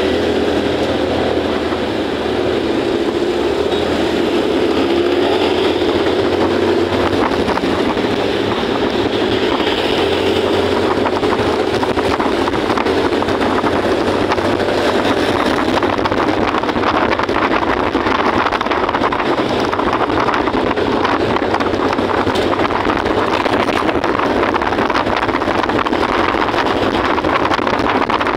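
Motorcycle ridden through city traffic: its engine pitch rises over the first few seconds as it pulls away, then gives way to a steady rush of wind on the microphone and road noise at speed.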